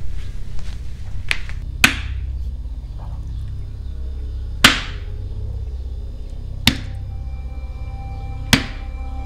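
A kitchen knife chopping raw meat on a wooden cutting board: four sharp, ringing chops about two seconds apart, over background music with a low drone.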